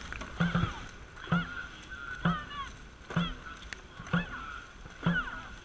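Short rhythmic shouts from a racing dragon boat crew, called in time with the paddle strokes, six of them at about one a second. Each shout comes with a brief low thud.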